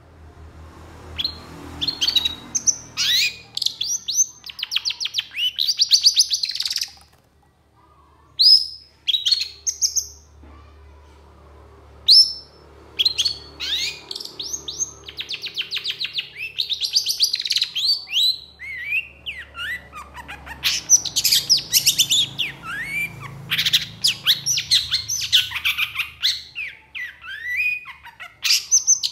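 Long-tailed shrike singing a loud, energetic song: long bursts of rapid chattering notes mixed with quick whistled slurs, broken by a few short pauses.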